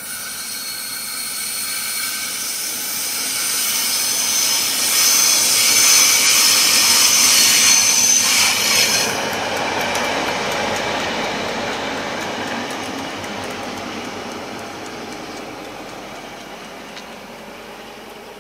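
A diesel locomotive running alone approaches, passes close by about halfway through and then fades away. High squealing tones from the wheels on the curve are loudest just before it passes, and after that its engine sound dies down as it goes.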